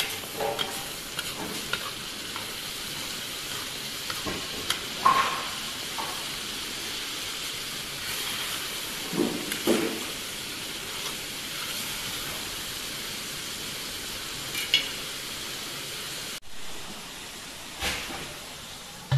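Broth sizzling and bubbling around rice in a cast-iron kazan of plov, a steady hiss, while a metal skimmer scrapes and knocks against the pot a few times as the rice is heaped into a mound.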